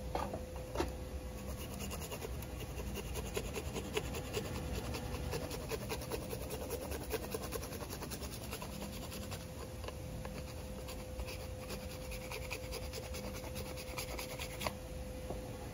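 A block of hard cheese rubbed quickly back and forth on a handheld rasp grater, a fast run of scraping strokes that stops near the end.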